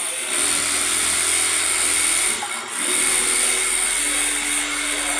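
Automatic pattern sewing machine with a JUKI sewing head stitching thick cotton fabric at speed: a steady high-pitched whirr of the needle drive that eases briefly about halfway through.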